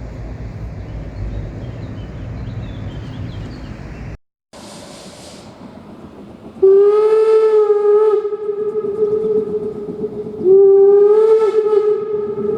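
A low rumble, then a short hiss, followed by a steam locomotive whistle blown twice. Each blast is a long, steady call that rises slightly at its onset.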